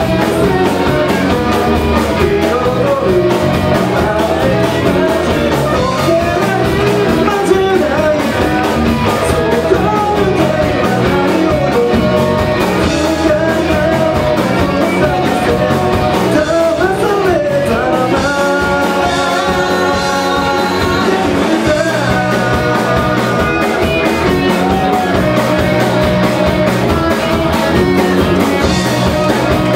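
Live rock band playing through a PA: electric guitars, bass and drum kit with a lead vocalist singing over them.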